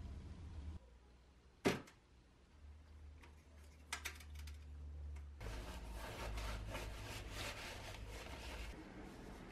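Paper towel rubbing over a bare steel axe head, a dense run of quick rustling scrapes through the second half. Earlier come one sharp knock and a few light clicks of metal and brush handling.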